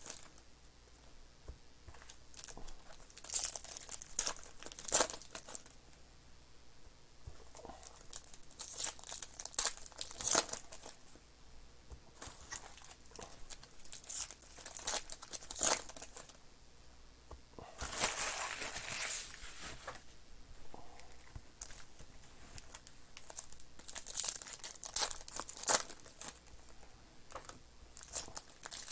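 Plastic card-pack wrappers and box wrap crinkling and tearing in irregular handling rustles as trading-card boxes and packs are opened, with one longer, louder tear about two-thirds of the way through.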